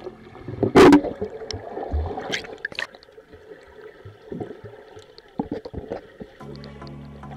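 Muffled water gurgling and bubbling picked up underwater in a swimming pool, with a loud splash about a second in and scattered small clicks and pops. A steady low hum starts abruptly near the end.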